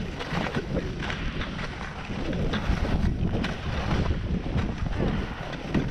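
Skis sliding slowly over packed, rutted snow, a steady hiss with scattered small scrapes and clicks, under low wind rumble on the camera microphone.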